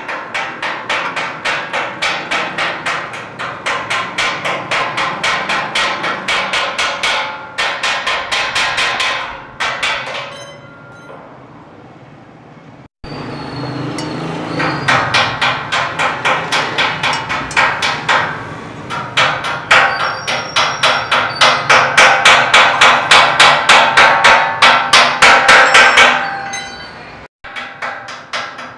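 Hammer striking metal in a steady, rapid rhythm of about three blows a second, each with a ringing metallic tone. The blows die away about ten seconds in, then start again abruptly a few seconds later and grow louder.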